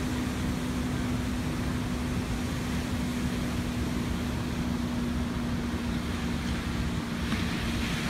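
Pacific Ocean surf breaking and washing onto a sandy beach: a steady rushing noise with a low rumble, the hiss growing a little near the end. A steady low hum runs underneath.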